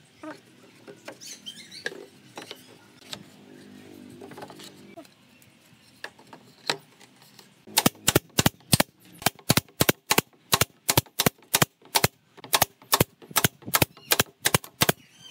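A board slides and knocks into place. About halfway through, a pneumatic nail gun starts firing in a rapid run of sharp shots, about four a second, driving nails into the pine floorboards of the cabinet base.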